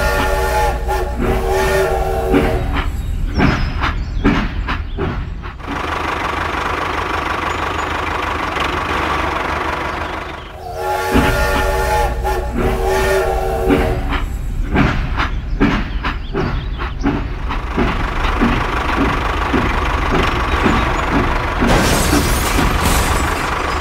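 Toy steam train's recorded sound effects: a whistle, then a run of rhythmic chugging clicks, the whole pattern repeating about ten seconds later like a looped sound chip. A burst of crash noise comes near the end as the train hits the tractor.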